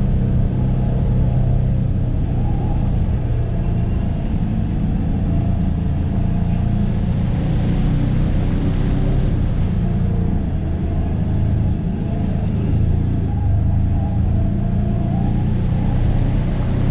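Polaris Ranger 1000 side-by-side's engine running steadily while driving, with a deep, even drone and a little rise and fall in revs.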